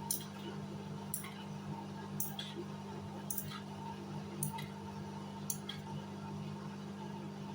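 Hoover Sudslock washing machine running, a steady hum with a sharp click about once a second.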